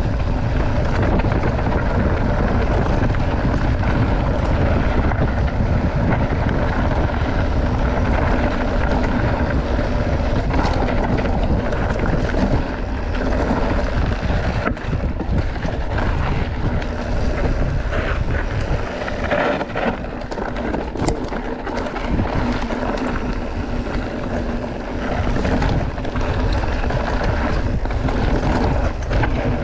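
Wind rushing over the microphone of a camera carried on a moving mountain bike, with the hiss of tyres on the trail. Scattered short knocks and clatters come through, mostly from about ten to twenty-two seconds in.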